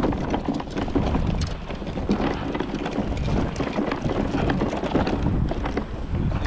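Wind rushing over the microphone while walking, with scattered knocks and rustles from footsteps and carried fishing gear.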